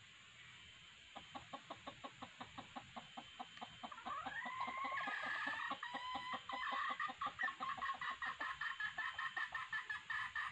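Red junglefowl calling: a quick run of clucks, about six a second, starting a second in, then a long rising call around four seconds in, followed by another long string of pitched clucks.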